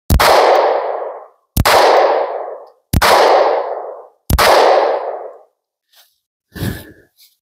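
Four shots from a SCCY CPX-2 9mm pistol loaded with hot surplus ammunition, about a second and a half apart, each echoing and dying away over about a second. A few faint rustles follow near the end.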